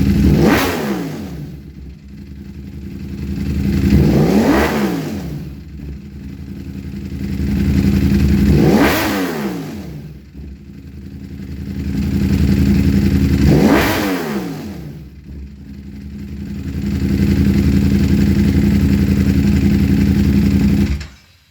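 Ducati Panigale V4 S's 1103 cc V4 engine, breathing through Arrow titanium slip-on silencers on a Termignoni up-map, revved up and let back down four times in slow, even sweeps, then held steady before it cuts off suddenly near the end. Raucous, loud exhaust.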